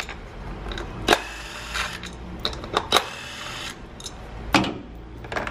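Scattered sharp metallic clicks and clinks of a hand tool and small screws as the ignition-coil hold-down screws are loosened and taken out, about six in all with uneven gaps.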